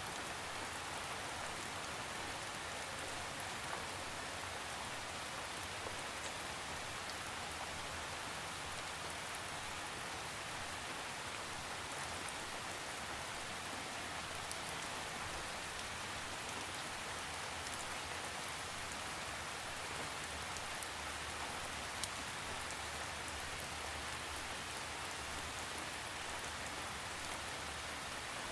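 Steady rain falling, a constant even hiss with occasional individual drops standing out, and no thunder.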